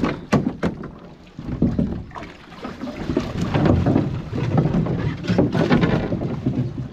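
A few sharp knocks of gear against a canoe hull in the first second, then water sloshing and splashing around the canoes as people wade and unload them in shallow water.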